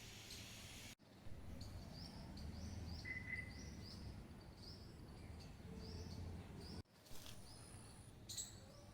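A small bird chirping over and over, about two short high calls a second, faint above a low outdoor rumble.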